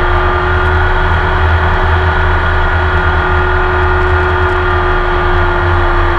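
Porsche 911 RSR's flat-six racing engine heard onboard, running loud at a nearly steady pitch with no gear changes or revving, over a heavy low rumble.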